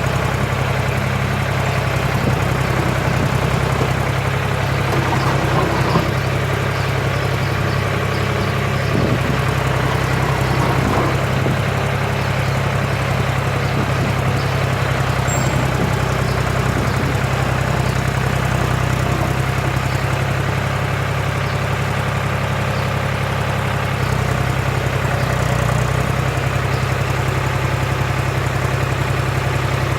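John Deere 300B backhoe's engine running steadily at a low, even speed, its note shifting slightly a few times.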